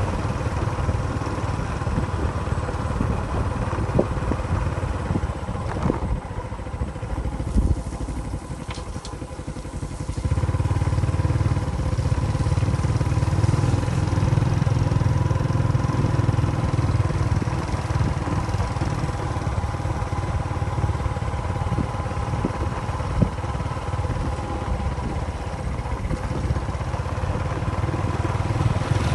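An engine running steadily with a low rumble and a held hum, easing off for a few seconds about six seconds in, then running louder again from about ten seconds in.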